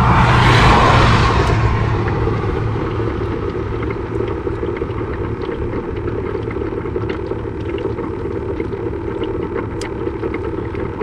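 Steady low rumble of wind on the microphone outdoors, with a louder rushing swell in the first two seconds that fades away, and faint small clicks from handling fishing tackle later on.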